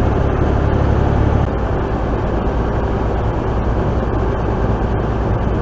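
Mack semi-truck's diesel engine and road noise heard inside the cab while driving: a steady low drone over tyre and wind hiss, the engine note dropping a little about a second and a half in.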